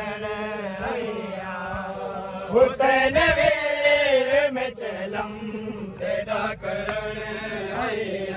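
Men's voices chanting a noha, a Shia lament for Imam Hussain, in a long wavering melody over a steady low hum, with a few sharp knocks.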